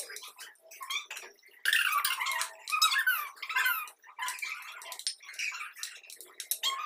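High, squeaky voice-like chatter whose pitch glides up and down, loudest from about two to four seconds in.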